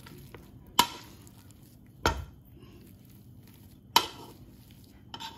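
Metal wire potato masher working boiled potatoes in a stainless steel pot, knocking sharply against the pot three times, a second or two apart.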